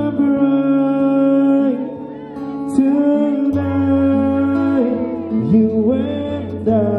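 A man singing into a microphone and accompanying himself on an acoustic guitar, amplified through a stage sound system. He holds long sung notes that slide between pitches over steady low guitar notes.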